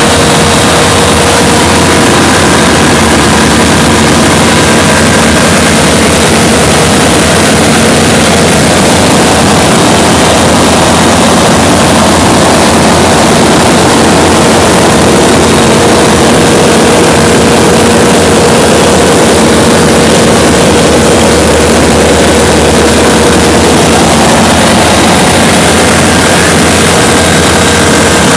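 A light high-wing aircraft's two-cylinder engine and propeller in steady cruise flight, heard loud from inside the cockpit: a constant drone with a steady hum and rushing wind, unchanging throughout.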